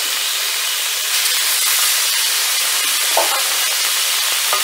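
Raw goat cubes sizzling as they are dropped into hot oil in a stainless steel pan to sear: a steady hiss that grows a little louder about a second in as more pieces go in.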